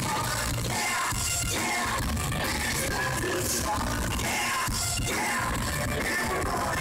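A live rock band playing loud and without a break: a singer's voice over electric guitar and drums.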